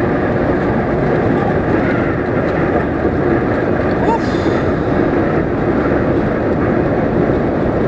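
Inside a Renault Premium truck cab at motorway speed: a steady engine drone mixed with road and wind noise.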